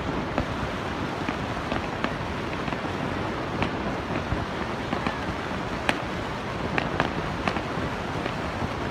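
Aerial fireworks going off in scattered, irregular sharp pops and crackles over the steady rushing roar of Niagara Falls.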